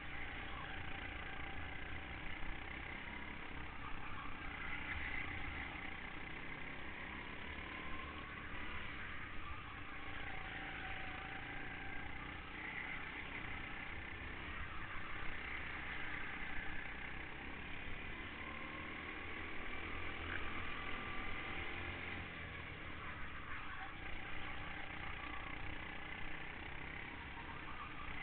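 Go-kart engine heard from the kart's own onboard camera while racing, its pitch slowly rising and falling through the corners over a steady rushing noise.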